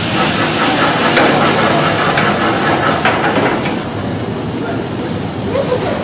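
Loud hiss of a tall flame flaring up from a pan on a kitchen range. About four seconds in it drops to a quieter sizzle of burger patties cooking on a grill over open fire.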